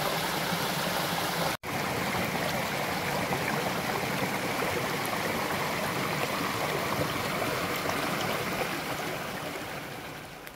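Shallow rocky stream rushing over small cascades: a steady, even sound of running water. It cuts out for an instant about a second and a half in and fades away near the end.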